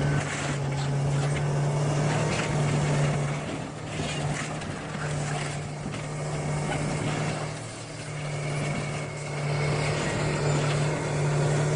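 Heavy earthmoving machine's engine running steadily under load, with occasional knocks and clanks.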